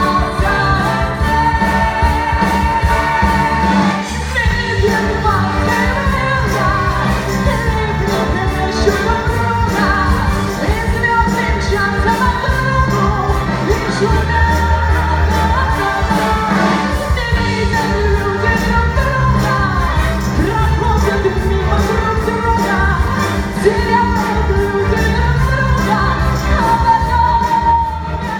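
A band playing live, with a singing melody line over a steady bass.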